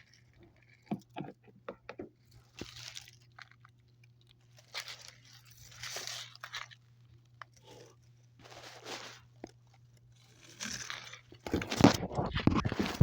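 Intermittent crunching and rustling noises in short bursts, with a few clicks early on and a louder crackling stretch near the end, over a faint steady hum.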